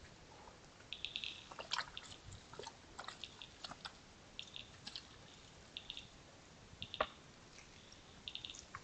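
Sambar deer antlers knocking and clicking together in sparring: irregular sharp clicks, the loudest about seven seconds in. Short groups of rapid high chirping pulses come between them.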